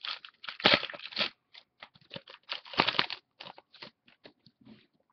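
Football trading cards being handled by hand: irregular rustling and light clicks of card stock, with two louder scraping, crinkling stretches about a second in and near three seconds, dying away near the end.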